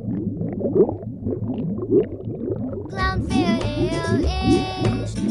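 Background music for a children's video: a low bed of short sliding notes, joined about three seconds in by a bright, sung-sounding melody.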